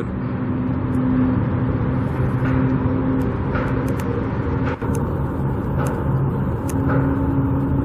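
An engine running steadily with an even low hum, with a few faint ticks and clicks over it.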